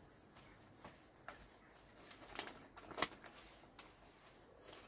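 Florist's wrapping paper rustling and crinkling in short bursts as it is folded up around a bouquet, with one sharp crackle about three seconds in.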